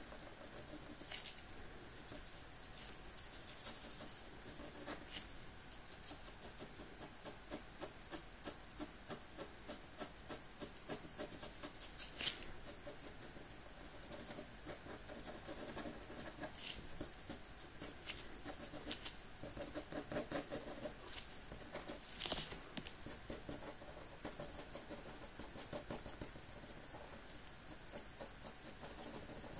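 Black ink pen scratching across paper in many short, quick strokes as a figure is inked, with a few sharper taps of the pen tip.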